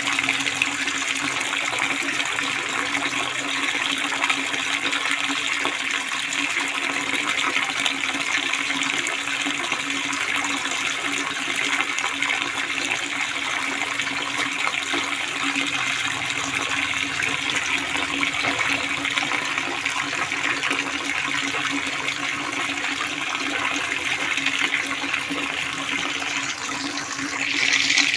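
Water pouring steadily from a spout and splashing, an even rushing hiss. Near the end the flow briefly grows louder and brighter, then falls back.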